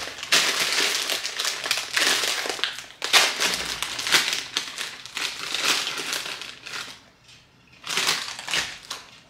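Chip bag crinkling loudly as it is grabbed, pulled open and handled, in rough rustling bursts for several seconds. After a short lull, a hand reaching into the bag brings another burst of rustling about eight seconds in.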